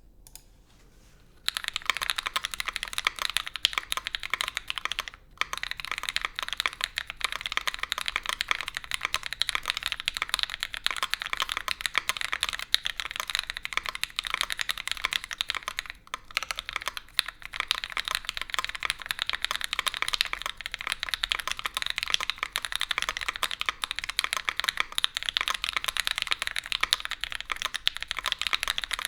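Continuous typing on a Keycult No.2 Rev.2 custom mechanical keyboard fitted with Gateron Oil King linear switches, GMK keycaps and a full aluminium leaf-spring plate with no foam. The typing starts about a second and a half in, dense and steady, with brief pauses around five and sixteen seconds.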